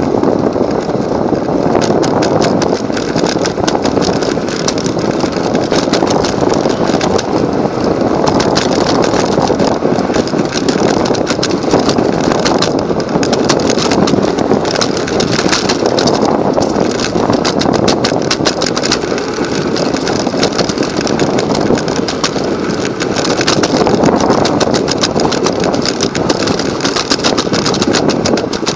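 Electric micro scooter being ridden over pavement: a steady rumble from its small wheels on the rough surface, with a constant fine rattle from the scooter.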